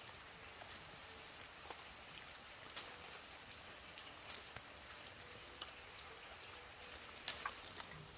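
Chili peppers being picked by hand: a few small snaps and leaf rustles, the sharpest one near the end, over a faint steady hiss.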